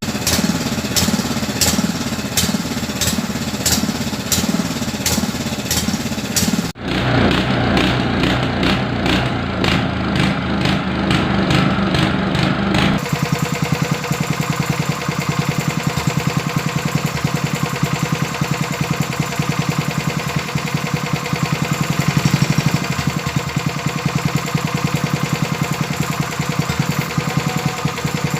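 Honda GX160 single-cylinder four-stroke engine running steadily with an even, rapid beat; the sound changes abruptly twice, about seven and thirteen seconds in.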